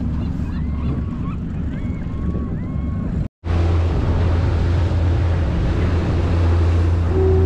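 Wind buffeting the microphone over sea water sounds. In the first three seconds a few faint short squeaks are heard. After a brief dropout about three seconds in, a louder, steady low wind rumble takes over.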